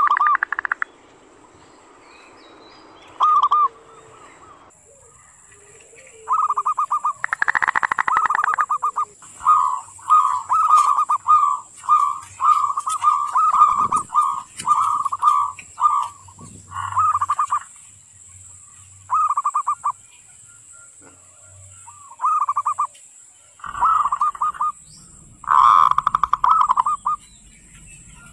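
Zebra dove (local perkutut) singing its cooing song: short, rolling, trilled coos, first in a fast unbroken run, then in separate phrases with brief pauses between them.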